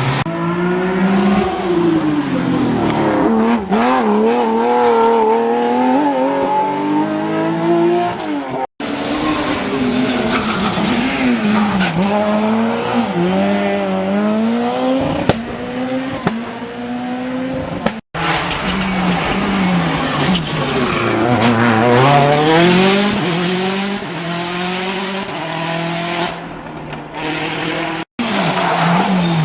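Rally cars driven hard, their engines revving up and falling back again and again through gear changes. The sound breaks off sharply three times as one car gives way to the next.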